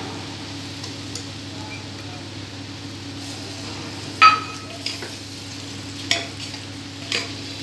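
Metal spatula stirring rice in an aluminium pressure cooker, scraping the pot, with one sharp ringing clink against the metal about four seconds in and a few lighter knocks after it. A low, steady sizzle of the pot on the flame runs underneath.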